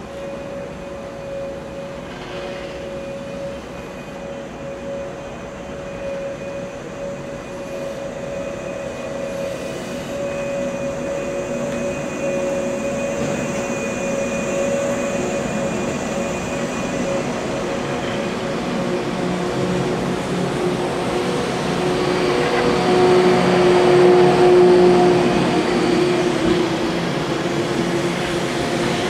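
JR 485-series electric train pulling away from the platform and running past at close range: a steady electric whine over rail and running-gear rumble. It grows louder as the cars go by and is loudest about three quarters of the way through.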